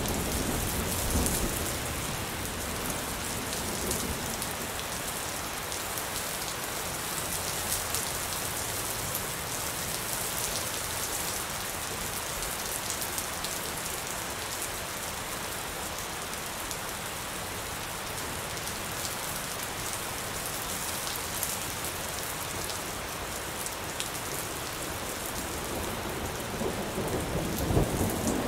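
Steady rain falling, with thunder: a low rumble about a second in and another one building near the end.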